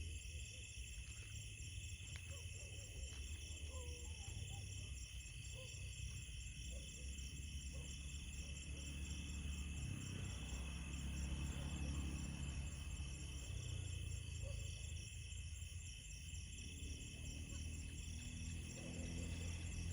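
Night chorus of crickets and other insects: steady, high-pitched pulsing trills over a low rumble, with a few faint short chirps.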